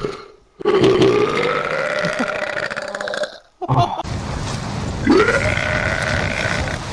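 A person letting out two long, loud burps of about three seconds each, with a brief sound between them. The second starts low and rises in pitch.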